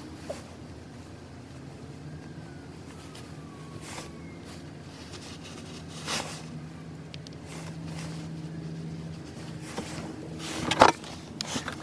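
Low steady hum inside a car cabin, with rustling and a few soft knocks as hands handle a fleece beanie and puffer jacket; the louder rustles come about six seconds in and near the end.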